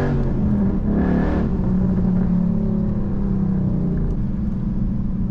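2012 Ford Mustang Boss 302's 5.0-litre V8 running under way on a mountain road, its engine note shifting briefly in the first second or so and then holding at steady revs.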